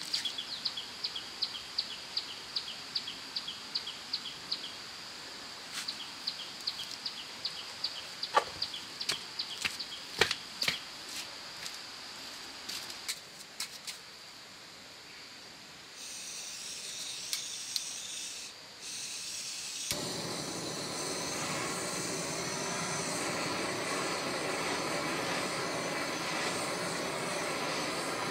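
Handheld butane torch on a small gas canister: a gas hiss starts about 16 seconds in, and from about 20 seconds the lit torch runs with a steady, even rush of flame. Before that there is a repeated high chirp with a few sharp taps.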